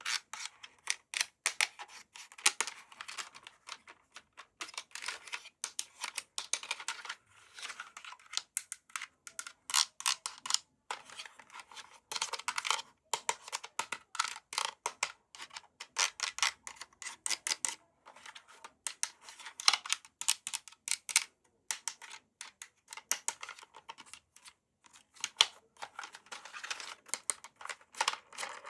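Close-up handling of a toy and its plastic packaging: a dense, irregular run of small clicks, taps and crinkles, with a few short pauses.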